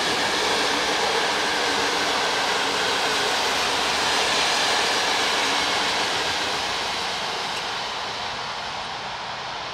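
Passenger coaches of an electric-hauled InterCity train rolling past at speed, wheels running on the rails. The steady noise begins to fade about six seconds in as the train draws away.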